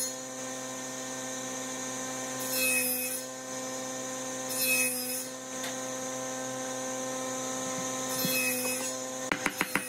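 Wood glue squeezed from a plastic bottle in three short hissing spurts, over a steady hum with several overtones. Near the end a rapid run of light sharp taps begins, a hammer tapping a branch-slice tabletop down onto a log base.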